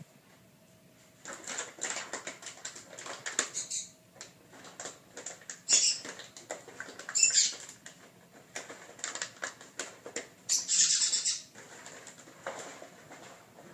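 Puppies scampering and playing on a tile floor: their claws patter and skitter in quick clicks, with a few louder scuffling bursts.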